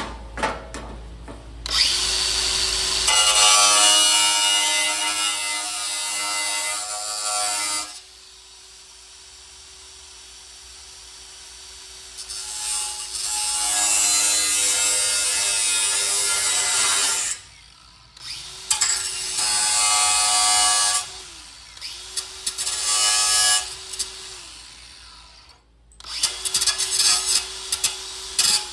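Grinder trimming the edge of a metal roll pan in five bursts of cutting, the motor's pitch dropping away in the pauses between passes.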